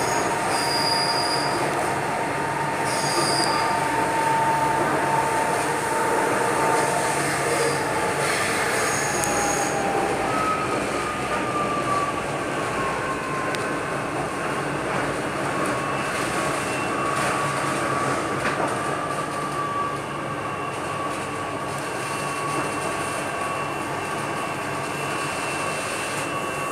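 Chennai Metro train running at speed, heard from inside the passenger car: a steady rumble of wheels on rail with a drawn-out whine that drops in pitch about ten seconds in. A few brief high-pitched squeals come in the first ten seconds.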